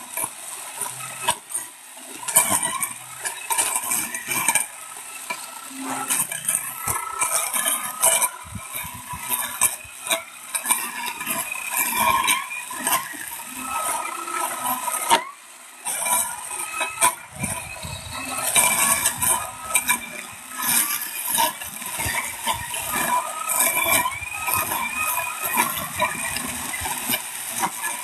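Sickle cutting through grass and weeds, an irregular run of short slicing and scraping strokes with the rustle and crackle of the cut stems.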